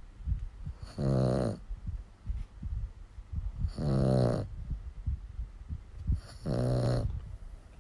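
Dog snoring: three pitched, rasping snores about every two and a half seconds, each lasting about half a second.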